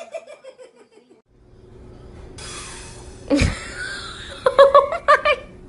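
Laughter: a laugh trailing off and falling in pitch in the first second, then, after a sudden loud sound a little past the middle, a short run of laughing bursts near the end.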